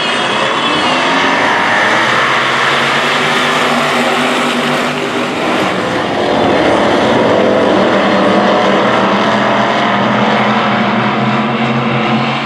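Engines of a pack of dirt-track stock cars running together around the oval, a steady loud mix of engine notes whose pitch drifts up and down as the cars throttle through the turns.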